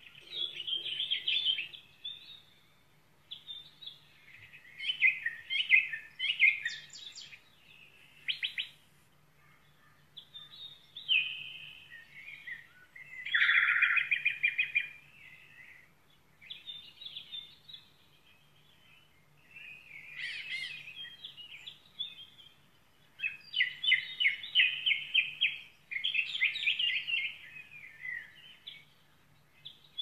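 Small songbirds singing and chirping in repeated short phrases of rapid notes, with quiet gaps between phrases.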